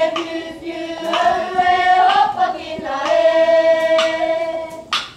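A group of girls and children singing a Māori poi song together in long held notes while they swing poi.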